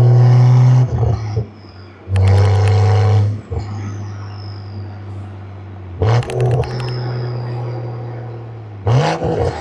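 Tuned Stage 2 Toyota GR Supra's turbocharged inline-six in a manual car, pulling hard and lifting for gear changes. Loud pulls near the start and around two to three seconds in give way to steadier, quieter running, with short throttle blips near six and nine seconds. A thin high whistle falls away after the lifts, and brief crackles come with the blips.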